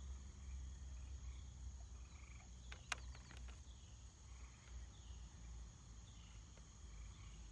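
Insects trilling steadily and high-pitched in the background, over a low steady rumble, with one sharp click about three seconds in.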